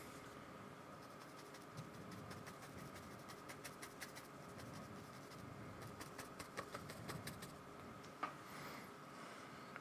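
Faint scratching and tapping of a paintbrush working acrylic paint onto paper, coming in short clusters of light ticks with quiet gaps between.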